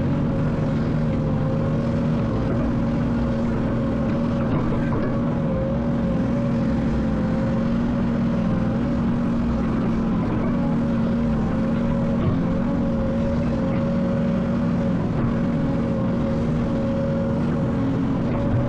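Diesel engine of an excavator running steadily under work, a constant drone whose pitch holds level throughout.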